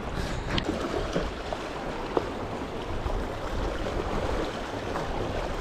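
Sea water lapping and splashing, with a steady low rumble of wind on the microphone and a few small ticks.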